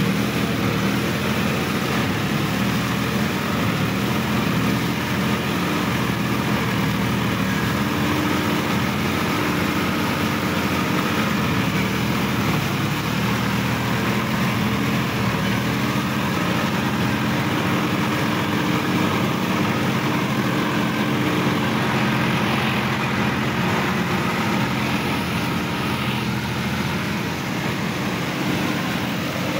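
Sonalika DI-50 RX tractor's diesel engine running steadily as the tractor drives through wet paddy-field mud.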